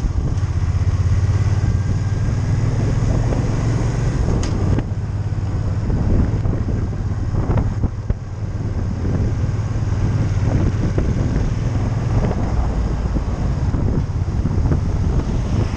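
Motorcycle engine running steadily while riding, heard from on the bike with wind rushing over the microphone.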